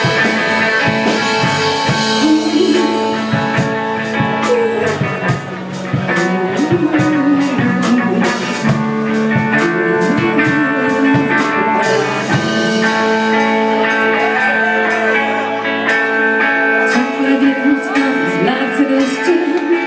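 Live rock band playing an instrumental passage: guitar lines over sustained chords, bass and drums with regular cymbal hits.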